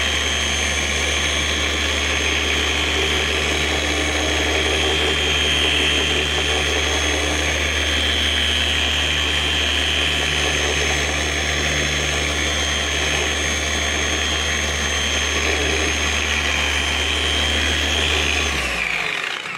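Electric polisher spinning a buffing pad against a plastic headlight lens, its motor running at one steady speed with a high whine, then winding down and stopping near the end.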